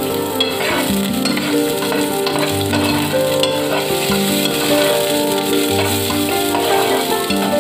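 Ginger and onion slices sizzling in hot oil in a pot as they are stirred with a spatula, under background music of held notes over a bass line.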